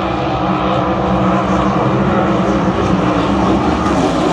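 Pro Light class racing hydroplane engines running at full speed during a heat, a loud, steady drone.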